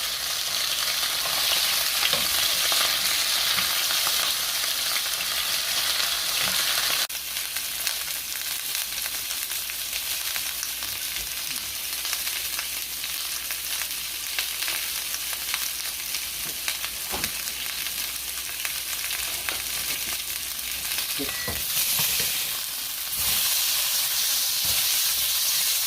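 Chicken breast sizzling as it fries in a pan, a steady dense hiss. The sizzle drops somewhat in level about seven seconds in and swells again near the end, with a few faint knocks.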